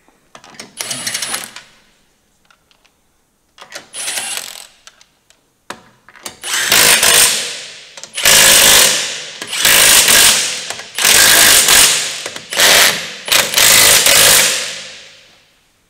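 Cordless impact wrench driving a wheel's bolts: two short runs in the first few seconds, then a string of about six longer, louder hammering bursts from about six seconds in, each tailing off as it stops.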